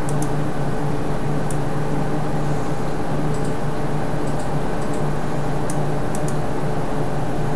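Steady hum and hiss, with several fixed tones in the hum, and a few faint, short high ticks scattered through it.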